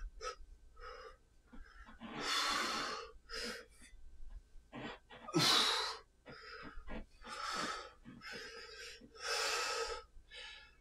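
A man breathing hard from exertion while swinging a clubbell: loud, noisy breaths, the strongest about every two seconds, with softer gasping breaths between.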